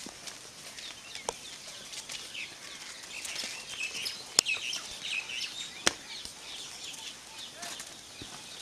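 Small birds chirping, with a few sharp clicks among them, the loudest about four and a half and six seconds in.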